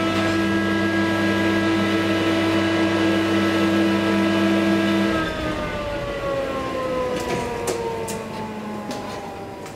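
Traction elevator drive whine heard from inside the car: a steady hum of several tones that, about five seconds in, falls in pitch and fades as the car slows to a stop. A few clicks follow near the end as the doors open.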